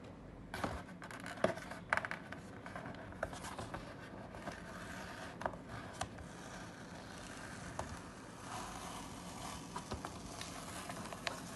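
Hands handling and rubbing across a sheet of watercolour paper: a soft, steady scraping with scattered light clicks.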